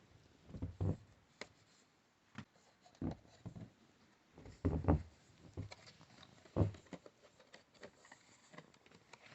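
Speaker packaging handled during unboxing: irregular soft thuds, scrapes and rustles of cardboard and packing, with a few sharper clicks.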